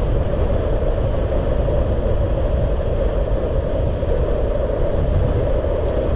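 Steady rushing noise from riding a bicycle in wind, picked up by the rider's action camera: wind on the microphone and tyres on the road, with a strong low rumble.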